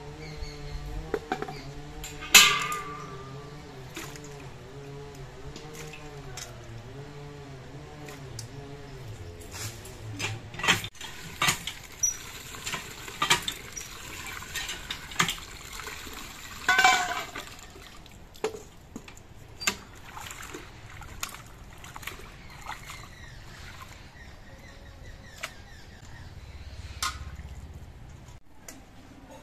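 Water splashing and pouring as vegetables are washed in steel bowls at a hand pump, with sharp clinks of the metal pot and bowls knocking together. A wavering drone runs underneath for the first ten seconds, then stops.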